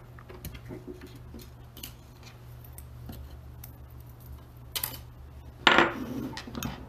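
Small robot parts and tools being handled and set down on a wooden workbench: scattered light clicks and knocks of hard metal and plastic pieces, with a louder clatter near the end, over a steady low hum.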